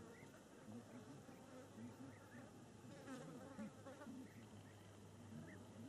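Near silence, with the faint wavering buzz of a flying insect passing close by.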